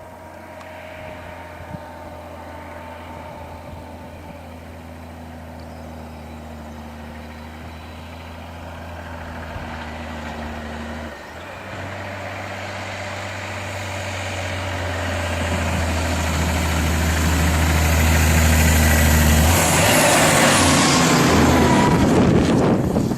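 Logging truck's diesel engine running steadily, with a brief drop about eleven seconds in, then growing much louder as it draws closer. A loud rushing noise rises over it near the end.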